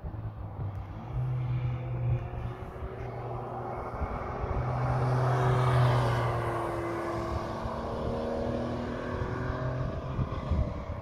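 Sports car engine passing at speed on a race track, growing louder to a peak about halfway through and then fading away, the white Porsche 911 in the picture at the peak.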